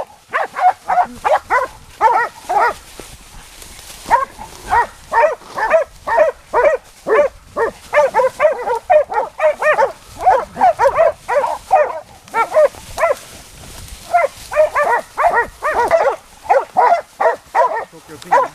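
A pack of hunting hounds baying a wild boar, several dogs barking rapidly and repeatedly in runs of quick barks with short pauses: the sign that the boar is held at bay.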